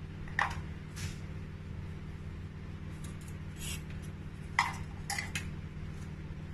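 Scattered light clicks and clinks of spice containers being handled while seasoning fish, over a steady low hum.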